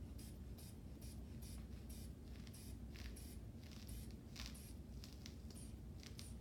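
Hand bulb of a manual blood-pressure cuff being squeezed over and over, a short airy puff with each squeeze at about two to three a second, as the cuff is pumped up on the arm.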